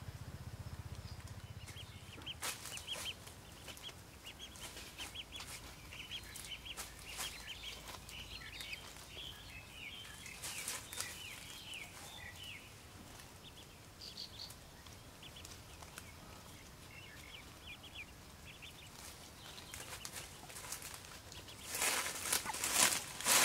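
A brood of ducklings peeping: rapid strings of short, high peeps that come in spells, with scuffling and rustling in a dry-grass nest. A louder burst of rustling and scuffling comes near the end.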